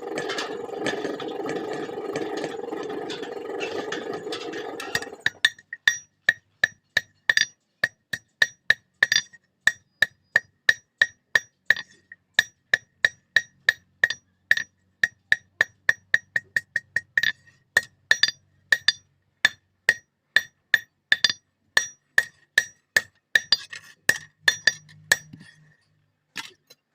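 Blacksmith's hammer striking steel on an anvil while forging a katari blade: a long run of regular blows, about two a second, each with a metallic ring. Before the hammering starts, a steady rushing noise runs for about five seconds.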